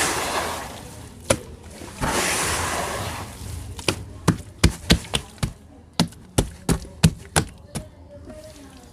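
Large chunks of red sand crumbling: two stretches of gritty hissing as loose sand spills and collapses, then a run of about a dozen sharp cracks as chunks break apart.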